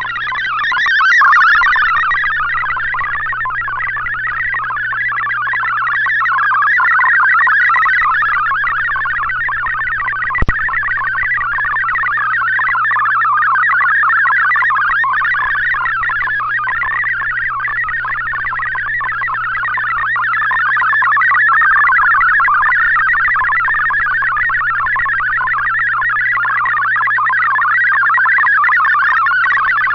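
MFSK64 digital data signal from a shortwave broadcast received on 7780 kHz through an Icom IC-R8600 receiver: a dense, fast warble of tones that slowly rises and falls in strength over a steady low hum. A single sharp click comes about ten and a half seconds in.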